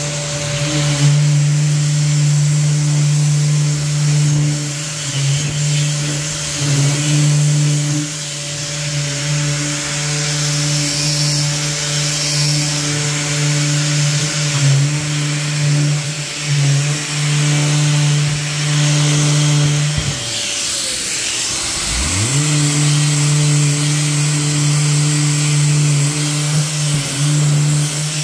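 SurfPrep electric orbital sander with a rectangular pad running with a steady hum over a rough hiss as it sands primer on a cabinet door before the topcoat, its dust-extraction hose attached. About two-thirds through the motor winds down and then spins back up.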